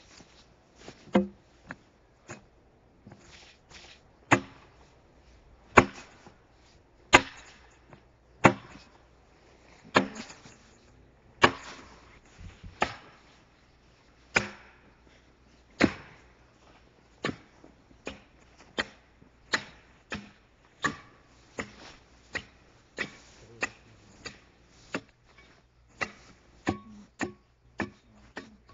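Axe blows chopping into an oak log to hew a railroad tie: sharp, ringing strikes about a second and a half apart at first, then coming quicker and lighter, roughly one every two-thirds of a second, through the second half.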